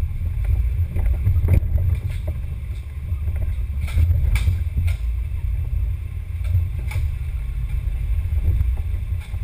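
Scale RC crawler driving over a rough dirt trail, heard from its hood-mounted camera: a steady low rumble of vibration and wind on the microphone, with sharp knocks as the truck bumps over the ground, several of them around the middle.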